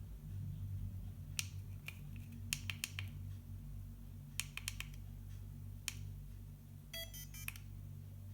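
FeiyuTech Vimble One smartphone gimbal running with a steady low hum and scattered sharp clicks, some single and some in quick clusters: the unwanted noise the stabilizer makes in operation.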